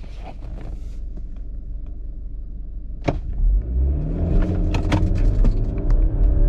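BMW 320i Touring's stock B48 2.0-litre turbocharged four-cylinder heard from inside the cabin: a low idle rumble, then a sharp click about three seconds in. Then the engine revs up and gets louder, rising in pitch, as the car launches hard from a standstill with launch control active.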